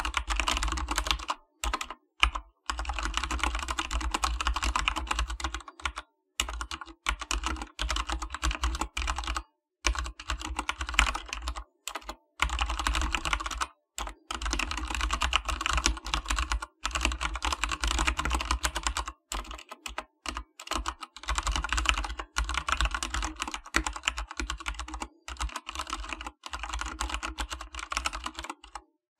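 Fast typing on an AKKO 3087SL mechanical keyboard: a rapid clatter of key presses in runs of a few seconds, broken by short pauses.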